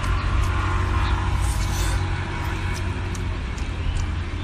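Steady low outdoor background rumble, with a few faint clicks.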